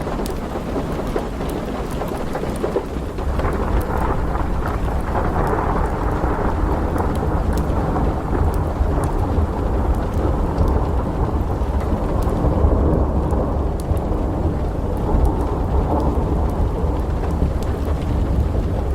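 Thunder rumbling long and low over steady rain, the rumble building a few seconds in and rolling on, with scattered small crackles on top.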